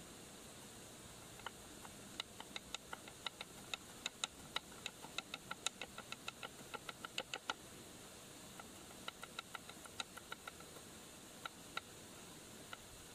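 Kitchen knife chopping green chillies on a wooden cutting board: runs of sharp taps, about three to four a second, with a pause in the middle and a few last taps near the end, over a steady background hiss.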